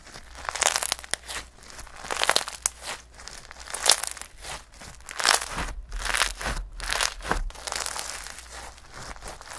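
Slime being squeezed and worked by hand, making crinkly, crackling noises in irregular bursts.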